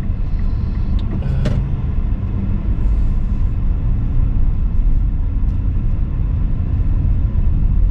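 Steady low rumble of a passenger train's diesel locomotives idling in the station.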